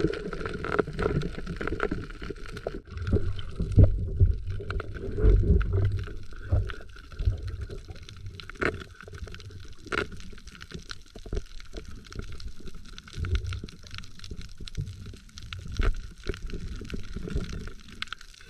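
Muffled underwater sound of a diver struggling with a caught octopus: low water rumble and swirl against the camera, loudest in the first few seconds, with scattered clicks and knocks.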